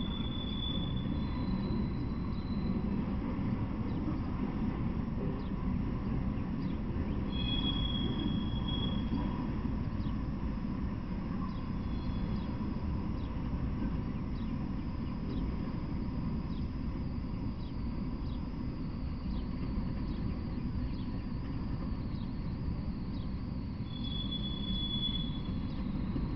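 Freight train of autorack cars rolling past: a steady rumble of wheels on rails, with brief high-pitched wheel squeals near the start, about eight seconds in and near the end.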